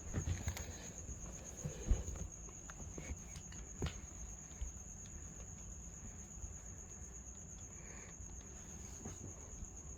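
A steady, high-pitched insect trill, typical of crickets, with a few soft knocks in the first four seconds, the loudest about two seconds in.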